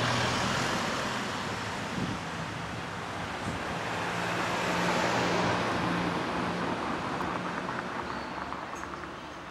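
Road traffic on a street: passing cars' tyre and engine noise, swelling near the start and again about halfway through, then fading.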